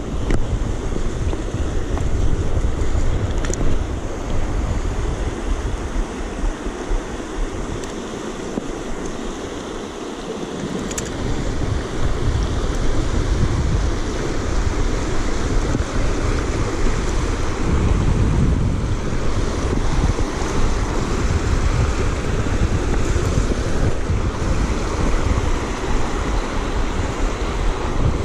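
Wind buffeting the microphone over the steady rush of a shallow river running through a riffle. The wind rumble eases for a few seconds about a third of the way in, then picks up again.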